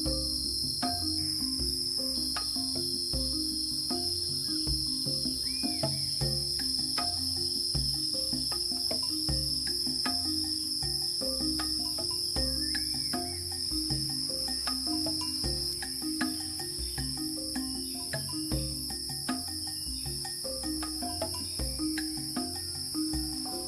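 Steady high-pitched chorus of forest insects, many trilling together without a break. Short scattered clicks are heard throughout.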